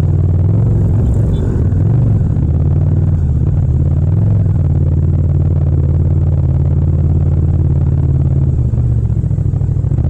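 Yamaha MT-07's 689 cc parallel-twin engine running in second gear at low road speed, its deep exhaust note rising and dipping slightly as the throttle is eased on and off.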